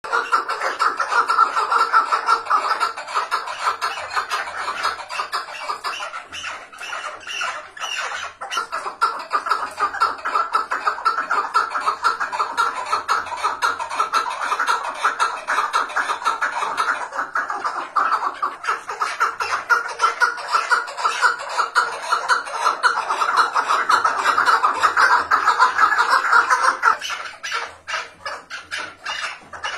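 Chukar partridge calling without a break, a fast run of repeated chuck notes, easing off about two seconds before the end.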